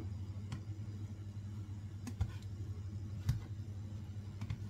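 A spatula stirring fried rice in a non-stick pan, making a few light clicks and knocks against the pan over a steady low hum.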